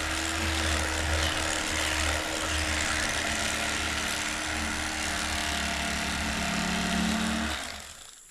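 Electric fillet knife running steadily as it cuts through catfish being cleaned, a motor sound with a low hum; it switches off about seven and a half seconds in.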